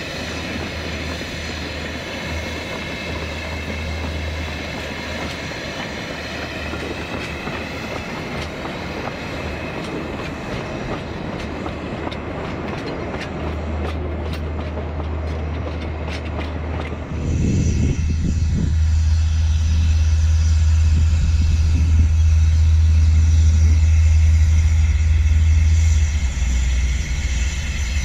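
Perry Engineering 0-4-2 narrow-gauge steam tank engine pulling its train away, with steam hissing, then the carriages clicking over the rail joints as they roll past. About two-thirds of the way in, a louder steady low rumble takes over.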